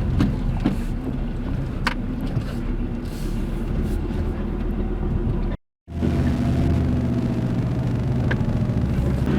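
Car driving along a rough beach track, its engine running steadily with a low rumble and a few sharp knocks. The sound cuts out completely for a moment just past halfway.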